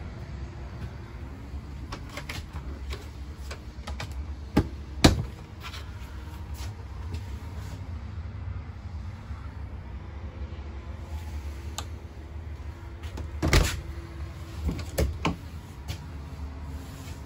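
RV refrigerator doors and cabinet latches being opened and shut: two sharp clicks about five seconds in and a cluster of clicks and knocks around thirteen to fifteen seconds in, over a steady low hum.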